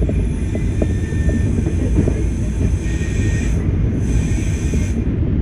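Class 104 diesel multiple unit's underfloor diesel engines and running gear rumbling steadily as the train rolls slowly into the platform, heard from the driver's cab. Scattered knocks from the wheels and track, and a faint brief high squeal about one second in and again about three seconds in.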